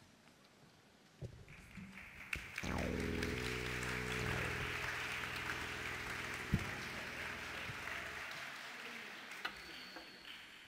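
Audience applause, which rises and then slowly fades. Under it, a low sustained musical chord from the stage begins a few seconds in with a falling sweep, holds, and stops shortly before the applause dies away.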